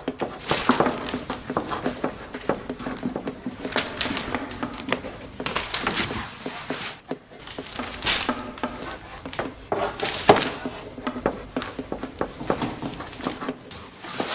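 Chalk writing on a blackboard: repeated sharp taps and short scratching strokes as figures and numbers are written.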